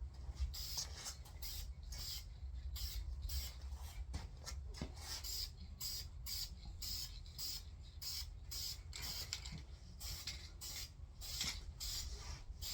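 Aerosol paint can spraying an engine block in many short hissing bursts, several a second, as the paint is worked into small recesses.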